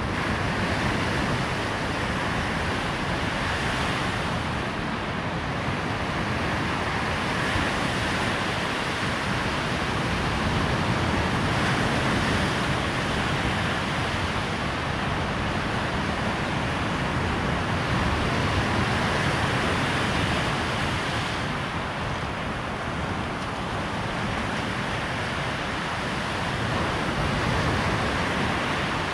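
Waves breaking and washing on a sandy shore, the surf swelling and easing every few seconds, with wind rumbling on the microphone.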